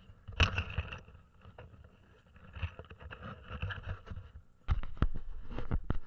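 Handling noise of a small action camera being carried and moved by hand: rubbing and rustling with irregular knocks, a sharp one about half a second in and a cluster of them near the end.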